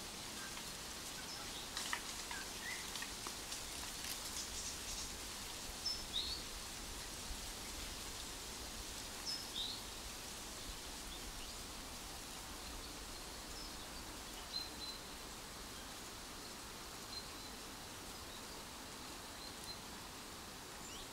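Faint outdoor woodland ambience: a steady soft hiss with a few short high bird chirps now and then, and scattered light ticks in the first few seconds.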